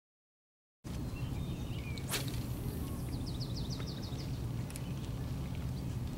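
A spinning rod being cast: one sharp swish about two seconds in, over a steady low rumble of outdoor noise that starts a little under a second in. A quick run of about eight faint high ticks follows.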